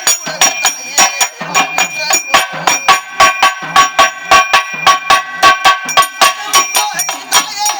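Pambai drum music: a fast, even beat of sharp drum strokes, about five a second, with steady metallic ringing from a bell or cymbal running over it.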